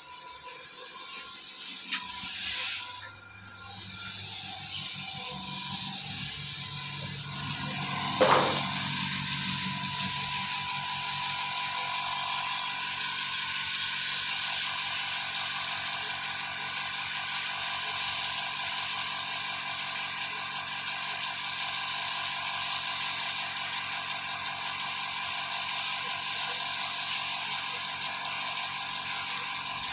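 Compressed-air paint spray gun hissing steadily as it sprays red paint onto a boat hull. The hiss cuts out briefly about three seconds in, and a single sharp click comes about eight seconds in.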